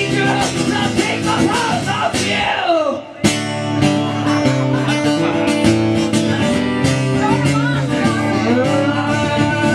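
Live acoustic guitar strummed with a man singing over it. About three seconds in, the playing breaks off for a moment and comes back in with a hard strum.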